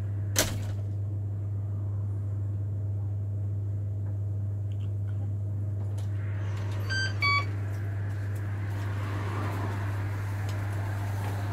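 Two short electronic beeps, the second lower than the first, about seven seconds in, over a steady low hum, with a sharp click near the start.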